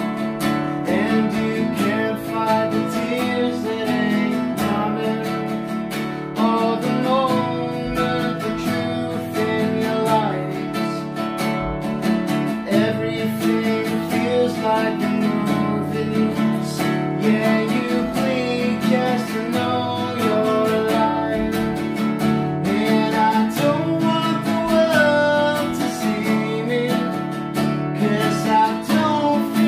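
Acoustic guitar strummed in steady chords, with a man singing along.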